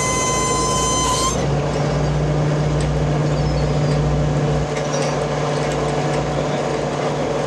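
Steady drone of the fishing boat's diesel engines and deck machinery running. A high whine rides on top and cuts off suddenly about a second in.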